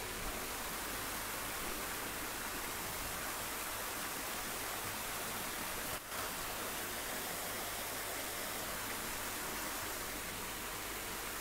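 Steady hiss with nothing else over it. It drops out for an instant about six seconds in.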